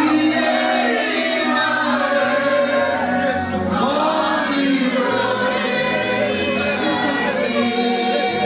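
Church choir singing in several voices, with low bass notes stepping from one to the next beneath the voices.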